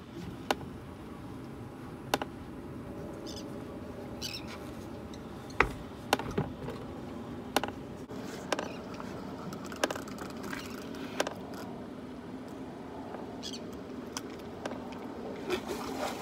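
Fishing rod and reel worked on a boat while playing a hooked gar: irregular sharp clicks and knocks over a steady low rumble, with a few short high chirps.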